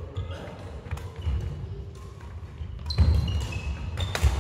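Badminton rally on a wooden sports-hall floor: rackets striking the shuttlecock with several sharp cracks, the loudest about three seconds in. Shoes squeak on the floor and footsteps thud, mostly in the second half, in an echoing hall.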